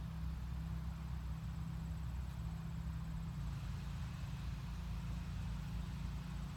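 Wind on the microphone: a steady low rumble with a fainter hiss of moving air above it.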